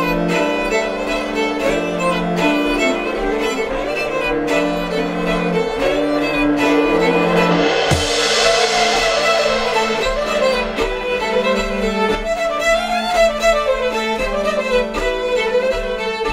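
Live folk band playing an instrumental tune, fiddles carrying the melody over accordion and cello. A cymbal crash rings out about halfway through.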